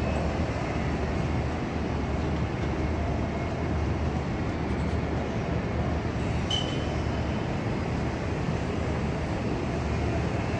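Steady low mechanical drone, like a running engine or heavy traffic, under a wash of outdoor noise, with one short sharp metallic clink about six and a half seconds in.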